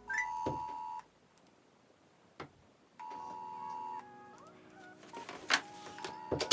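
Ringback tone of an outgoing phone call played through the phone's speaker: a one-second ring tone repeating every three seconds, three times. A couple of sharp knocks come near the end.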